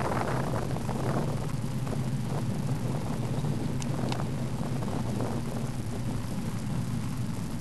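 Steady low rumble of a bicycle rolling along a tarmac street, with wind noise on the microphone of the camera riding on the bike. Two faint, brief high squeaks come about four seconds in.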